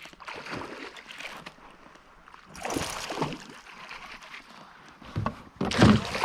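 Water splashing and sloshing beside a kayak in three bursts, the loudest near the end.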